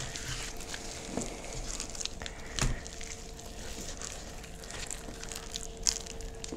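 A gloved hand rubbing olive oil over a raw tri-tip on a wooden cutting board: faint wet squelches and small smacks, with a couple of louder slaps of meat on the board. A faint steady hum runs underneath.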